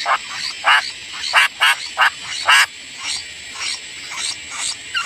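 Sooty-headed bulbuls at the nest giving short calls about every two-thirds of a second: five loud ones in the first half, then fainter, higher chirps.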